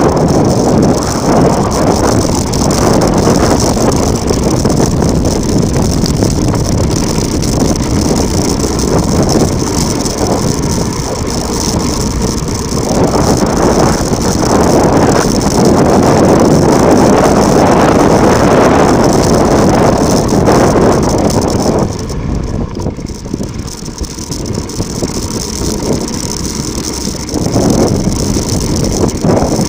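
Mountain bike riding fast downhill on loose volcanic ground: tyre noise and the bike's rattle mixed with wind on the microphone. It eases for a few seconds about two-thirds of the way through.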